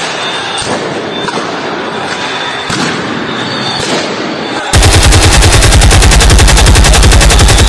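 Noisy background with a few sharp knocks, then about 4.7 s in a very loud burst of rapid automatic gunfire, around fifteen shots a second, that runs for about three seconds and cuts off abruptly.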